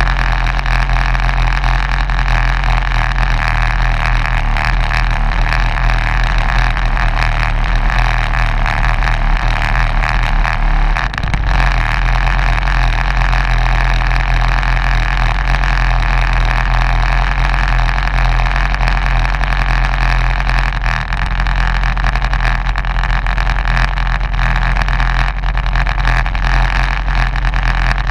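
A race vehicle's engine idling steadily while the vehicle sits stationary, with a brief dip about eleven seconds in.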